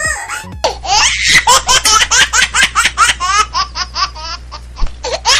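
High-pitched laughter, starting about half a second in and running as a quick string of short laughs, about four a second.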